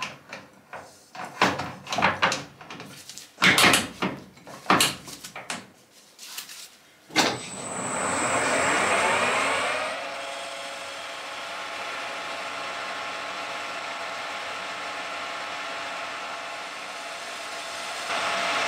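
A run of clunks and clicks as the lathe is set up by hand, then about seven seconds in a Colchester lathe starts, its pitch rising as it spins up with a thin high whistle, and settles into a steady run while a carbide insert turns 304 stainless steel.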